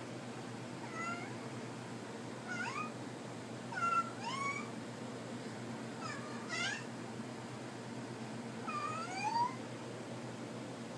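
A cat meowing: about five short calls, some rising and some falling in pitch, spaced a second or more apart, over a steady low hum.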